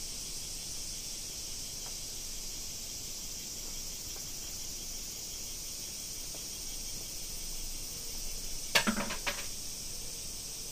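A steady, high-pitched chorus of insects. Near the end come a few sharp clattering knocks.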